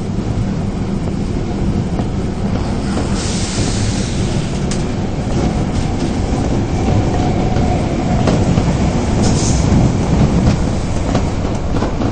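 Osaka Metro Tanimachi Line subway train running between stations, heard from inside the carriage: a steady rumble of wheels and running gear, with brief high hissing twice and clicks over rail joints near the end.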